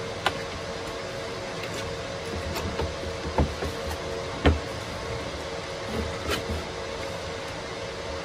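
Handling noise from a plastic-bodied disc sander being assembled by hand: scattered light clicks and a few knocks, the loudest about four and a half seconds in, over a steady background hum.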